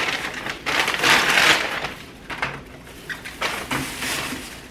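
Brown paper and white plastic takeout bags rustling and crinkling as they are handled and unpacked, with a long loud rustle about a second in, then several shorter ones.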